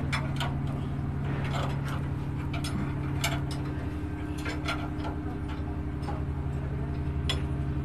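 Steady low drone of running machinery, with scattered sharp metallic clicks and knocks from tools and parts being handled during engine dismantling.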